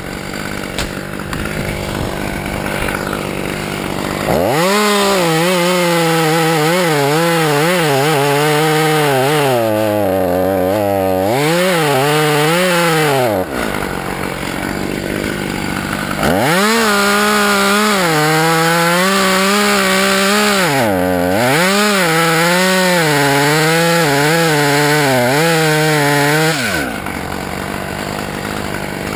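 Husqvarna two-stroke chainsaw idling, then revved to full throttle for two long cuts through mimosa limbs with a short drop to idle between them. The engine pitch sags and recovers over and over as the chain bites into the wood.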